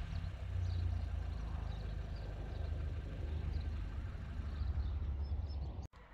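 SEAT Ateca's 1.5 TSI turbocharged four-cylinder petrol engine idling steadily, heard at the exhaust just after a rev. It cuts off abruptly near the end.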